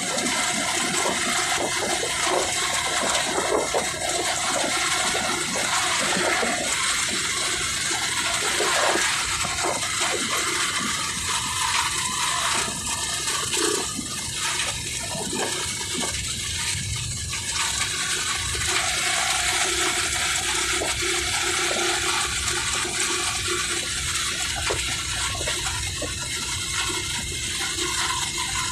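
Steady rushing noise of wind and road on the phone's microphone while riding in a moving motorcycle tricycle.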